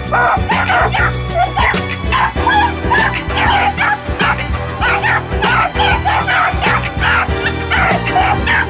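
Beagle puppies barking excitedly in rapid short high calls, several a second, at a rabbit held in a wire live trap, over background music with a steady beat.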